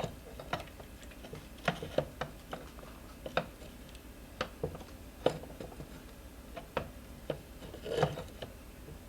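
Scattered light clicks and knocks of metal parts as the scooter's rear wheel and axle are worked into the frame, about a dozen at uneven intervals, with a short clatter near the end.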